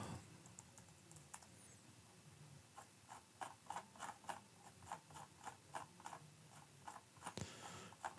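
Faint computer mouse clicking, a run of short clicks about three a second, with one sharper click near the end.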